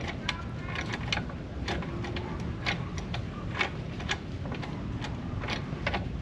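Irregular small clicks and light knocks, about one or two a second, from tools and metal hardware being handled during the work, over a steady low hum.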